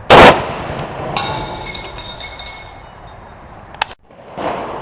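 An M1 Garand in .30-06, fitted with a ported gas plug, fires one shot of Federal Power-Shock 180-grain soft-point ammunition right at the start. About a second in comes a ringing metallic clink lasting over a second, and near the end there is a sharp click and a second, weaker bang.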